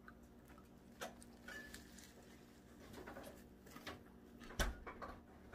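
Faint chewing and small handling noises of someone eating a messy breakfast sandwich: scattered soft clicks and rustles, with a sharper knock about four and a half seconds in.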